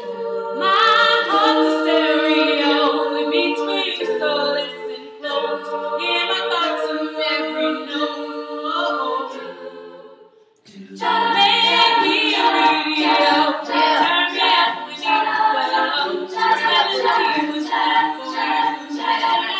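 All-female a cappella group singing in close harmony, with held chords over a low sustained note. The singing breaks off briefly about ten seconds in, then comes back in full.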